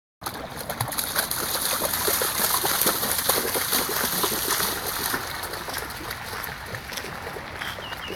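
English springer spaniel splashing as it runs through shallow water, with irregular splashes from its strides over the rush of the flowing ditch. The splashing is loudest in the first few seconds and eases off toward the end.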